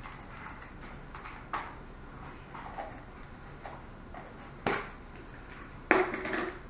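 A few small scattered knocks, then a louder clatter with a short rattle about six seconds in as a small bowl is set down on the floor.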